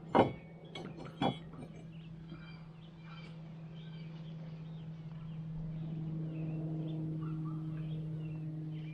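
A few sharp knocks of lumber being handled, then a steady low motor hum that grows louder and holds, with birds chirping faintly.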